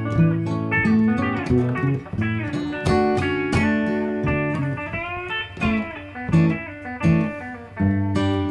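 Instrumental country music: a guitar plays a lead line of quick plucked single notes, with some notes bent up in pitch about halfway through.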